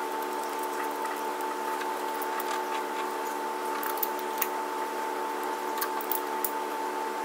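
Small metallic clicks of a bolt and the horn bracket being handled and fitted by hand, several in the second half, over a steady background hum.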